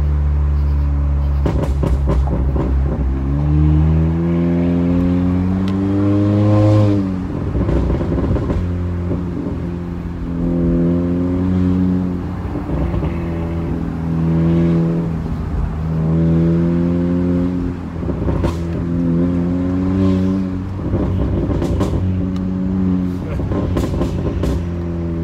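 Honda Accord 1.5-litre turbo four-cylinder with a PRL downpipe and front pipe and its resonator and muffler deleted, heard from inside the cabin. The exhaust drone climbs steadily under acceleration, drops suddenly about seven seconds in, then rises and falls over and over with the throttle. Short sharp crackles and pops come at several of the lifts.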